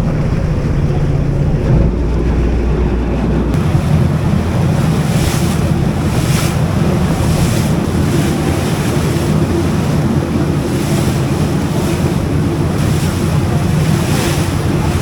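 Wind buffeting the microphone: a loud, continuous rushing noise with a deep, unsteady rumble.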